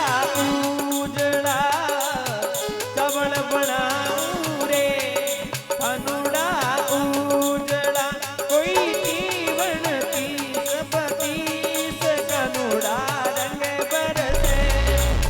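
Instrumental interlude of a Rajasthani folk bhajan: a wavering, heavily ornamented melody line over a steady drone, with a regular percussion beat. A deep bass thump comes near the end.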